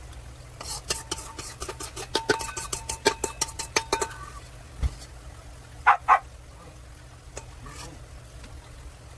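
A metal spoon scraping and tapping against a stainless steel stand-mixer bowl as cake batter is scraped out: a quick run of ringing metal clinks for about three seconds, then a dull thump and two louder clinks.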